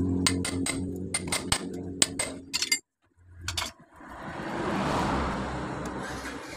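Hammer blows on an impact screwdriver loosening screws on a motorcycle engine cover: a quick run of sharp metallic clinks over a steady low engine hum. After a brief gap come two more clinks, then a rush of noise that swells and fades.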